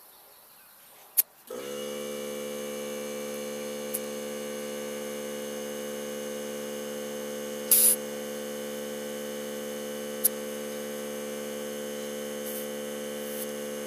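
An air compressor's electric motor starts about a second and a half in, rising briefly to speed, then runs with a steady hum. A short hiss of air comes near the middle, as the air chuck on the coiled hose is pressed onto the tyre valve.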